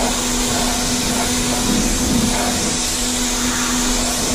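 Michelin MPX 14E 1400 W electric pressure washer running, its motor and pump giving a steady hum under the hiss of the high-pressure water jet spraying against a car's bodywork.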